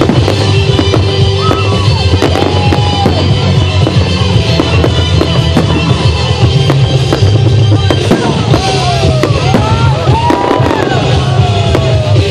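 Fireworks display: many sharp bangs and crackles, with gliding whistles in the second half, over loud music with a heavy bass.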